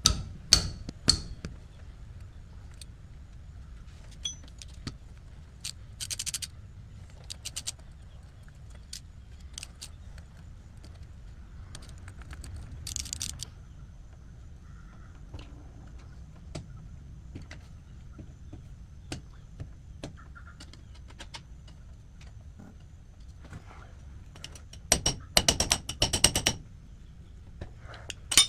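Scattered metallic clicks and clinks of a wrench and loose bolts as the bolts around a tractor's front axle hub are taken off. There is a quick run of sharp clicks in the first second and a louder cluster of ringing metal clinks about 25 seconds in.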